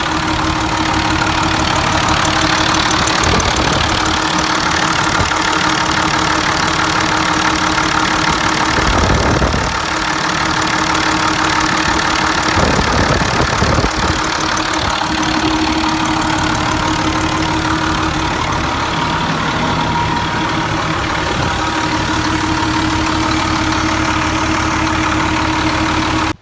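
Allis-Chalmers 210 tractor's six-cylinder diesel engine running steadily at an even pace during a ride. It stops abruptly at the very end.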